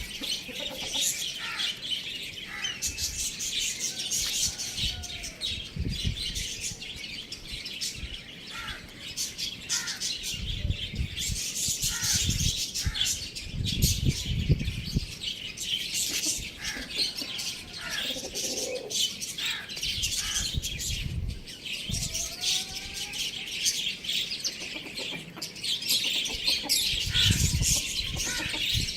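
Many small birds chirping and chattering at once, without a break, with a few lower call notes and irregular low rumbles in between.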